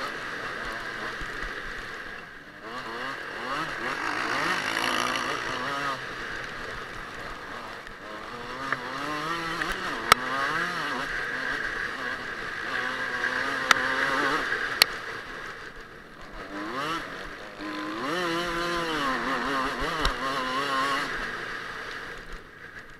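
Kawasaki KX125 two-stroke motocross bike engine at full racing revs, the pitch climbing and dropping again and again through gear changes, with wind rushing over the helmet microphone. A few sharp clicks are heard in the middle, and the engine quietens near the end as the bike slows.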